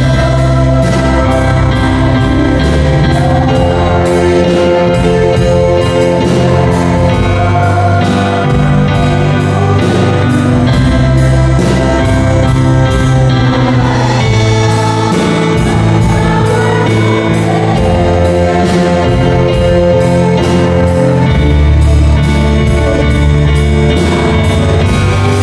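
Live gospel praise band playing: electronic keyboard, electric guitar and drum kit, with cymbals keeping a steady beat.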